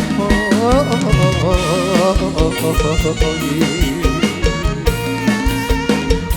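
Live Isan luk thung band playing an instrumental passage: drum kit keeping a steady beat under melodic lead lines.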